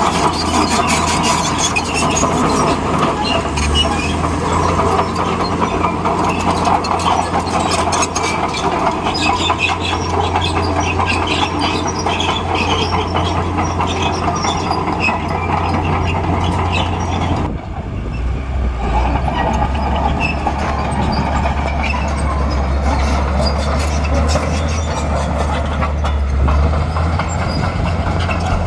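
Crawler bulldozer working: its diesel engine runs steadily under a continuous clatter and clanking of the steel tracks. The level dips briefly about two-thirds of the way through.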